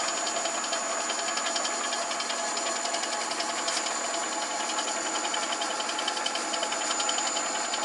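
Myford ML7 lathe running steadily, its faceplate spinning a nine-inch cast flywheel, with an even mechanical hum and a steady high whine.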